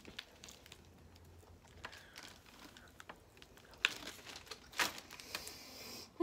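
Quiet eating sounds: scattered small clicks and crinkles from chewing and a plastic fork in a plastic food tray, with two sharper clicks about four and five seconds in.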